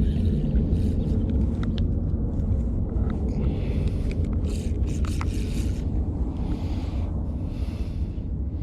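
Wind buffeting the microphone in a steady low rumble, with a few faint clicks.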